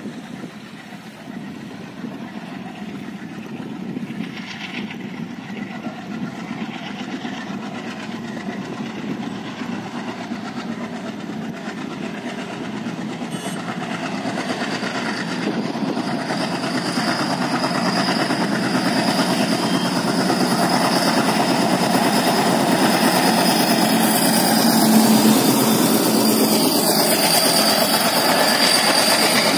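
WDP-3A diesel locomotive, an ALCO-engined type, chugging as the passenger train approaches, its sound growing steadily louder and peaking as the locomotive passes late on, after which the coaches run by. A steady high whine sets in about halfway through.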